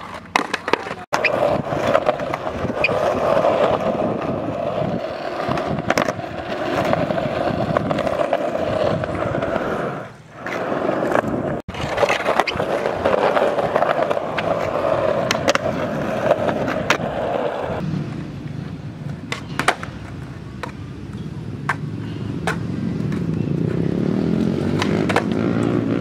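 Skateboard wheels rolling on concrete, with sharp clacks of the board hitting the ground and ledge. The rolling cuts off abruptly a few times.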